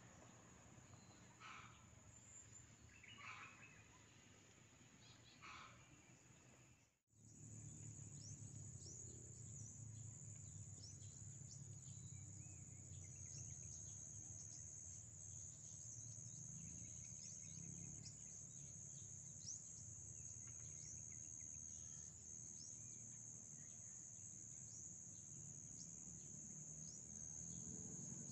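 Insects keep up a steady high-pitched drone, with many short falling bird chirps over it and a faint low rumble underneath. The sound cuts out briefly about seven seconds in.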